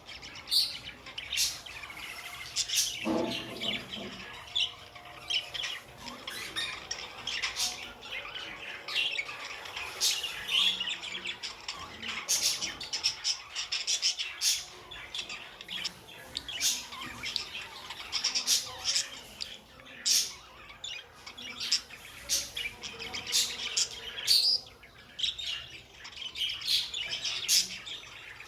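Budgerigars chirping and squawking, a steady stream of short, sharp calls.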